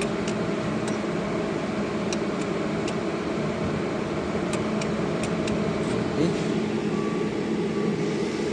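Steady electrical hum of welding equipment running, with sharp light clicks every half second to a second.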